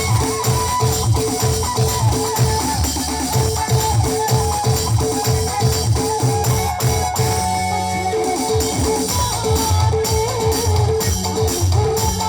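A band playing music with a steady beat during a sound check, with drums and bass prominent.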